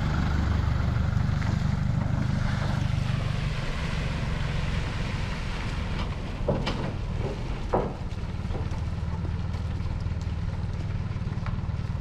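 Vehicle engine running steadily with a low rumble, and two short knocks about six and a half and nearly eight seconds in.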